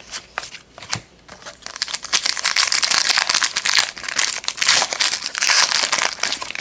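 A trading-card pack wrapper being torn open and crinkled. A few light clicks come first, then about a second and a half in a dense, loud crinkling starts and carries on until just before the end.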